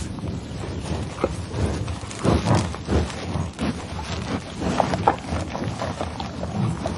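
Bison making low, rough calls in uneven surges, with a few short higher sounds about five seconds in.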